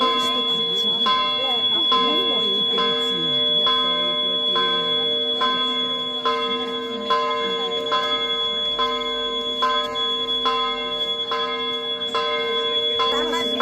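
A church bell tolling in an even, steady rhythm, just over one stroke a second, its tone ringing on between the strokes.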